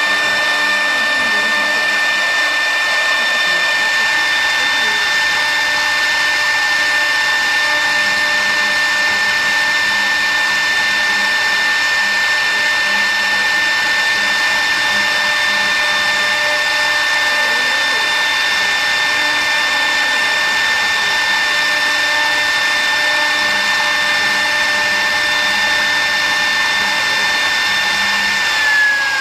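Mini CNC router's high-speed spindle running with a steady high whine while engraving wood. Near the end the pitch falls as the spindle spins down.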